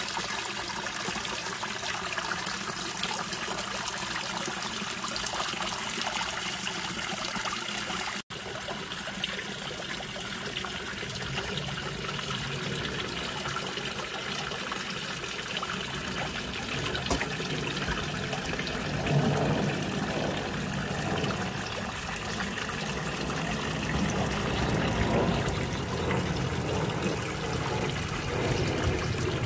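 Backyard pond waterfall: water spilling off a stone spillway ledge and splashing steadily into the pond below. The sound drops out for an instant about eight seconds in and becomes a little fuller and deeper in the second half.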